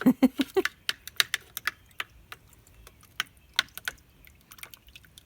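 A stirring utensil clicking and tapping irregularly against the mixing tub while nectar is stirred, busiest in the first couple of seconds and thinning out after that. A short vocal sound comes right at the start.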